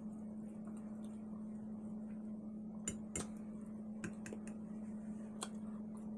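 Quiet eating at a plate: a handful of sharp, scattered clicks and taps, over a steady low hum.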